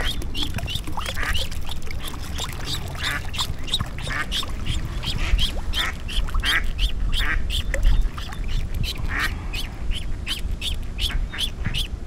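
Duckling caught on a fishing lure's hook peeping in distress: a rapid, steady series of short, high-pitched peeps, about three a second, with a few lower, harsher calls mixed in, over a constant low rush of water.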